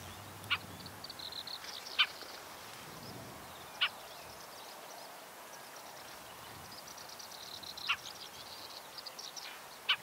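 Siberian rubythroat giving its simple call, a short sharp "kuk", five times at uneven intervals. Faint high twittering runs underneath.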